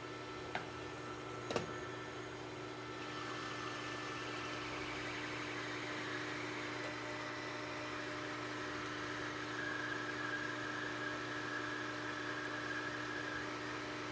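Metal lathe running with a steady motor hum, and two light clicks in the first two seconds. From about three seconds in, an indexable insert tool takes a 0.050-inch-deep turning cut along the bar under fast power feed, adding a steady hiss with a faint high whine near the end.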